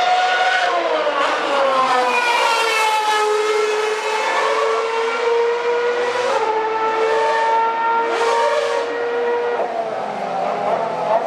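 Several 2012 Formula 1 cars' 2.4-litre V8 engines running at high revs, the overlapping high-pitched notes falling away over the first few seconds and then holding nearly steady, with a few short crackles near the middle.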